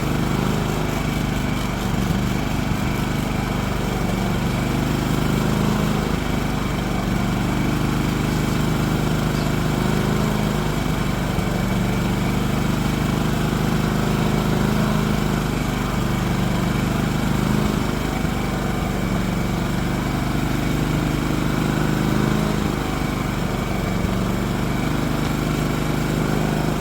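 Champion dual fuel portable generator's single-cylinder four-stroke engine running steadily at its governed speed under no change in load, an even, unbroken drone.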